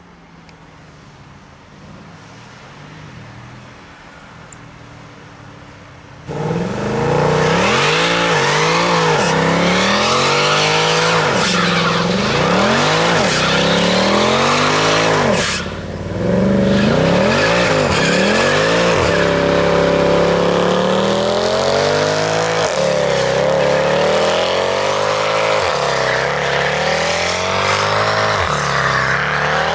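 Mercedes-Benz C63 AMG (W204) V8 at low revs for about six seconds, then suddenly revved hard in a burnout. The engine rises and falls again and again at high revs over the hiss and squeal of spinning tyres, with a brief dip about halfway through.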